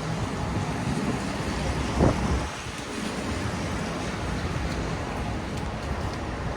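Snowstorm street ambience: wind rushing over the microphone on top of a steady low rumble of city traffic, with a brief louder gust about two seconds in.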